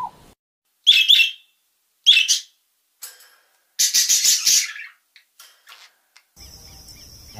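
A bird calling in short, harsh, high bursts: two brief calls about a second apart, a faint third, then a longer call about four seconds in.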